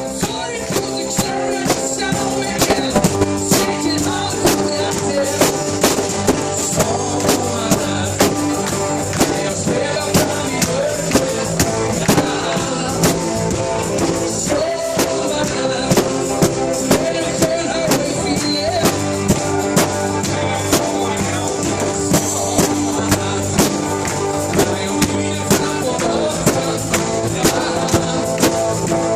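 Live dansband playing an unplugged song, with a steady beat of about two strokes a second under guitar and melody. The audience recording is unpolished, as the uploader admits.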